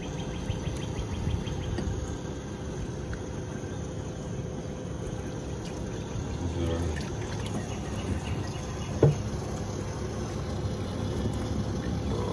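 Steady low rumble and hiss of a fishing boat under way, with a faint steady hum, and a single sharp knock about nine seconds in.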